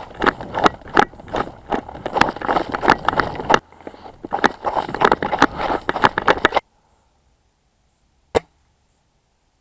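Footsteps on rough ground, about three a second, with gear rattling along; the sound cuts off suddenly, then one sharp click near the end.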